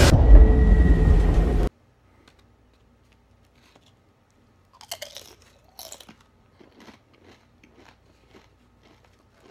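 Loud action-film soundtrack with music and booms that cuts off abruptly under two seconds in. Then a person bites into tortilla-chip nachos: two crisp crunching bites around the middle, followed by quieter chewing crunches.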